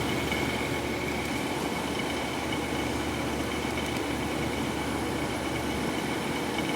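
A 1953 Fedders Weather Bureau window air conditioner running steadily: the compressor and blower hum evenly with a constant high whine over the airflow. The unit is cooling on what is taken to be a full charge of R-12 refrigerant.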